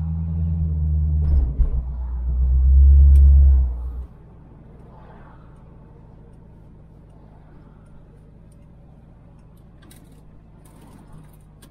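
1969 Chevelle's engine and exhaust rumbling low and steady on the road, getting louder about three seconds in. The rumble drops away suddenly about four seconds in, leaving only a faint low hum.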